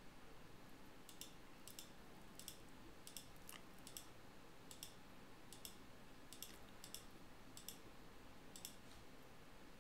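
Faint computer mouse clicks, about a dozen at irregular intervals, over quiet room tone.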